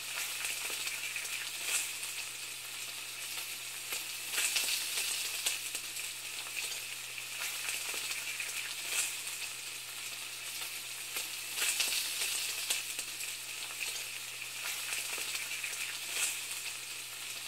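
Steady sizzling hiss with scattered crackles, over a faint steady low hum.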